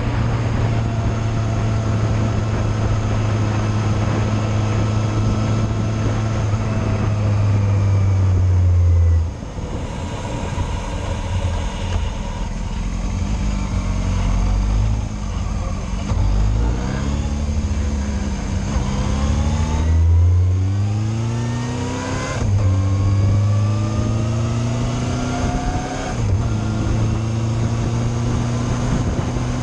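Yamaha Fazer motorcycle engine under way: a steady cruise, easing off about nine seconds in, then pulling away again with rising revs broken by several gear changes.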